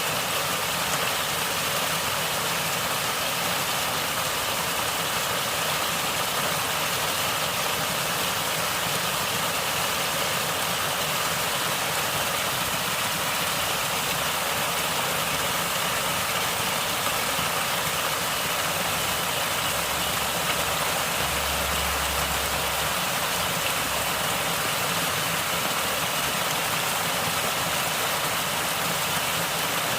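Natural stream water flowing and gurgling, a steady even rush with no change in level.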